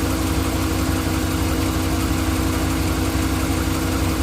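2015 Ram pickup engine idling steadily, heard from the passenger side. The irregular tick from a failing lifter on cylinder 5 is hard to hear from this side.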